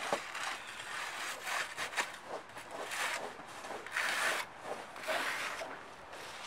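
Snow brush sweeping snow off a car's body and windows in repeated scraping strokes, a few of them louder.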